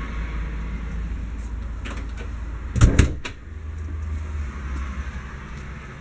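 Low steady rumble of a handheld camera being carried and moved. About three seconds in comes a thump with two or three sharp clacks, like a door or cabinet being bumped.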